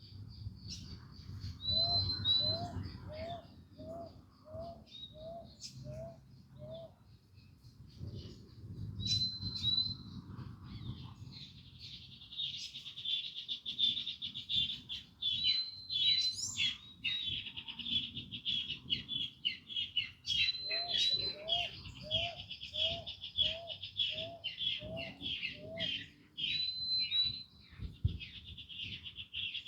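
Several wild birds singing at once. One gives a run of about eight short, low, rising whistled notes at roughly two a second, twice. Others give high chirps and, from about halfway in, a dense, fast chattering song.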